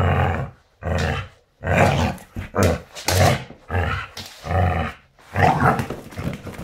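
A dog growling in a run of short, loud bursts, about one a second, while it pulls and shakes a rope toy in a game of tug-of-war.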